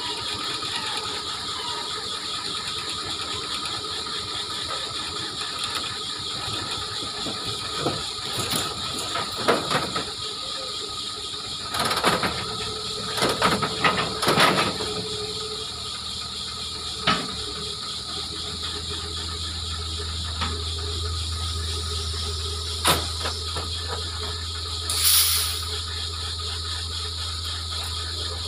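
A log-grapple excavator's engine and hydraulics are running, with a series of knocks and clanks as the grapple handles logs on a log truck, thickest around the middle. About two-thirds of the way in, a low steady engine drone sets in and keeps going.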